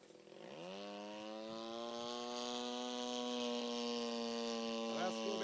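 Radio-controlled Yak-54 model plane's twin-cylinder opposed (boxer) two-stroke petrol engine and propeller droning in flight overhead. The engine note climbs in pitch over the first second, then holds a steady high-pitched buzz.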